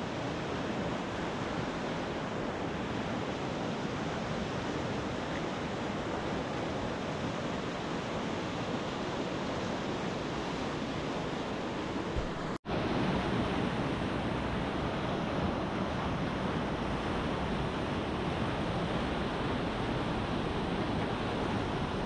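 Steady rushing of whitewater rapids. The sound cuts out for an instant a little past the middle, then resumes slightly louder.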